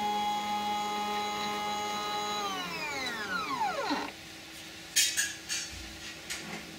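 NEMA 17 stepper motor driving the CNC machine's X axis: its whine climbs in pitch as it speeds up, holds steady for about two and a half seconds, then falls as it slows and stops about four seconds in. After it stops, a faint steady hum and a few light clicks remain.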